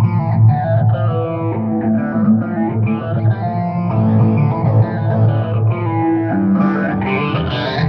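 Guitar-led music with bass, the electric guitar played with distortion.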